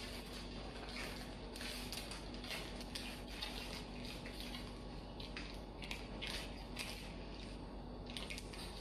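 Faint, irregular soft rustles and small taps of fingers pressing and folding shortcrust pastry edges over lattice strips in a metal tart pan, over a faint steady hum.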